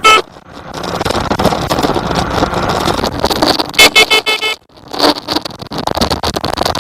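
A bicycle warning signal sounding in short high beeps: one right at the start and four in quick succession about four seconds in, over steady wind and rolling noise.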